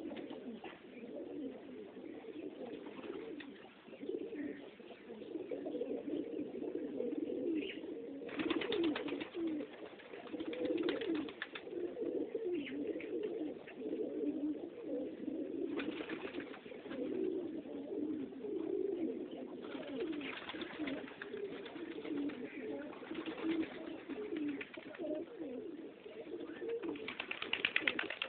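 A flock of domestic pigeons cooing continuously, many birds' coos overlapping, with several short bursts of rapid rustling mixed in.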